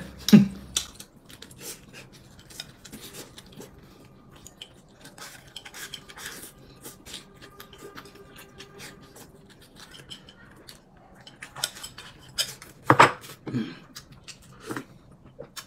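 Eating utensils lightly clinking and scraping against bowls and plates during a meal, with some chewing. One louder sharp sound comes near the end.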